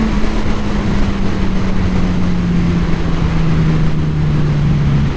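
Motorcycle engine running steadily, its note sinking slowly as the bike eases off, under a loud rush of wind noise.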